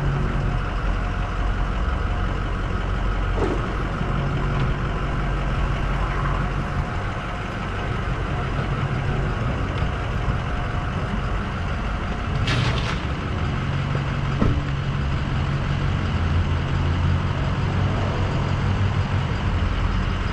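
Flatbed tow truck's engine running steadily, with one brief hiss of air a little past the middle.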